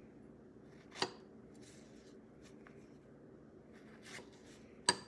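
A knife cutting strawberries, its blade knocking down onto the surface beneath twice, about a second in and near the end, each knock with a short ring, and faint slicing and scraping in between.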